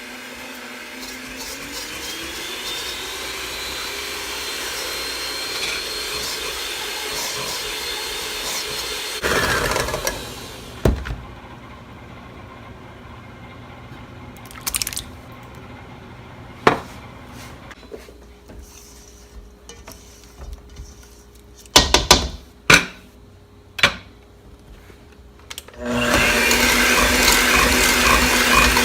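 Electric kitchen appliance motor running, its pitch rising as it speeds up, then switched off about nine seconds in. Several sharp knocks and clicks follow. The motor starts again near the end, louder.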